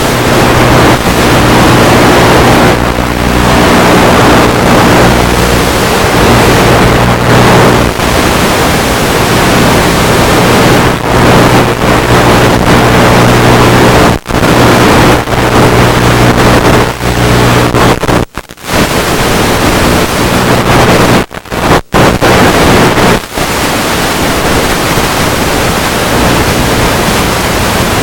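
FPV quadcopter in flight: a steady hum of its electric motors under loud rushing noise from wind and propeller wash. The sound cuts out briefly three or four times, about halfway through and later on.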